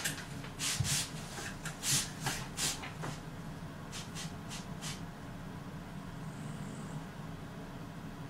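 Steady low room hum, with a run of short, sharp hissy rustles in the first five seconds, then only the hum.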